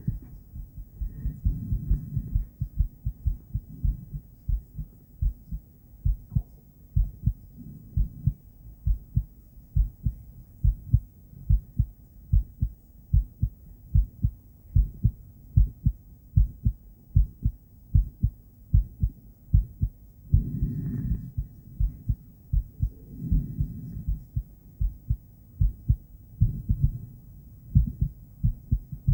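A woman's heartbeat played through an ultrasonic heartbeat device: a steady, regular train of low beats, with a few louder, longer swells partway through and near the end.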